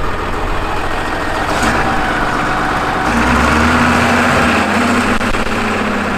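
Wheel loader's diesel engine running close by, its note growing louder and higher about halfway through as it is revved.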